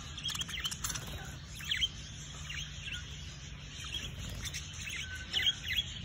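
Caged budgerigars chirping: many short, high chirps scattered throughout, a few louder clusters among them, over a low steady hum.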